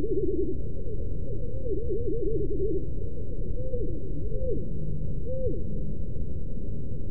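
Bird song slowed far down, heard as low whistles swooping up and down in arches over a steady low rumble. The whistles come in quick runs at first, then as a few single swoops.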